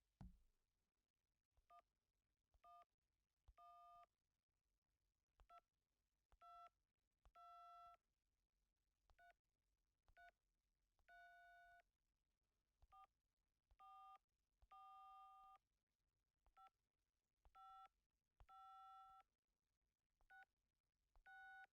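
Telephone keypad dialing tones: dual-tone beeps whose pitch pair changes from key to key, coming in repeated groups of two short beeps and a longer one. A low thump sounds at the very start.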